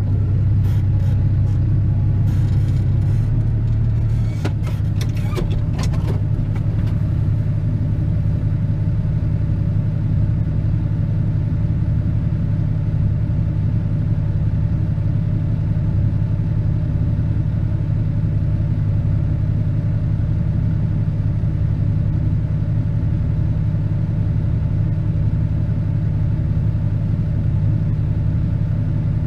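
Ford 7840 tractor's diesel engine running steadily, heard from inside the cab while it drives slowly. There are short rattles in the first several seconds, and the engine note eases slightly about four seconds in.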